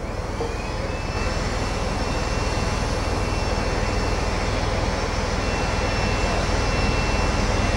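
A crane's engine running steadily, with a faint high whine that rises slightly about a second in and then holds.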